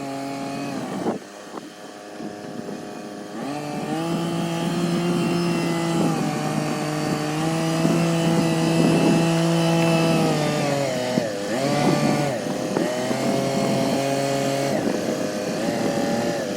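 Kioti CK3510SE compact tractor's diesel engine running the backhoe. The revs rise about four seconds in and hold high, then sag briefly twice.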